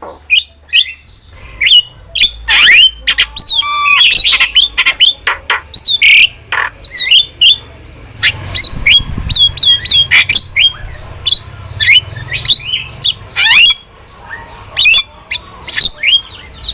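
A jalak starling chattering: a fast, nearly unbroken run of whistles, squawks and chirps, many of them dropping sharply in pitch.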